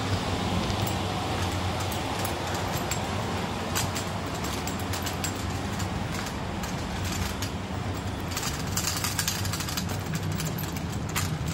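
A steady low mechanical hum, with scattered light clicks from about four seconds in.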